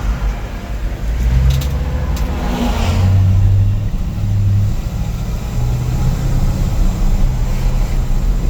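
1955 Chevrolet 3100 pickup's engine pulling the truck along on the road, its note rising and falling as it accelerates and eases off.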